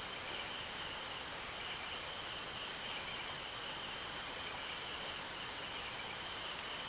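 Night-time insect chorus: crickets trilling steadily at several high pitches, with a faint higher chirp repeating about once a second.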